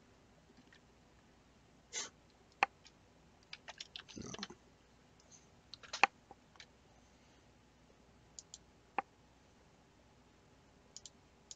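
Scattered sharp computer mouse clicks, single and in small clusters, as menus are clicked open, with a soft rustle about four seconds in.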